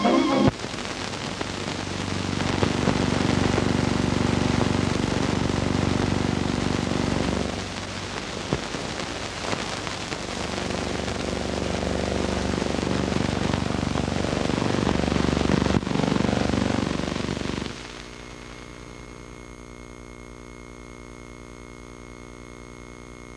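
Loud crackling hiss with a low rumble, uneven in level, that drops about eighteen seconds in to a quieter steady hum.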